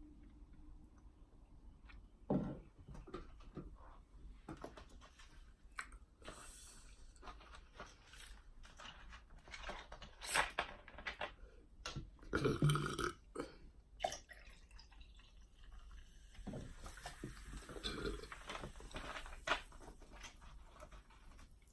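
A woman burping several times, with quieter eating and mouth noises between; the loudest burps come about halfway through.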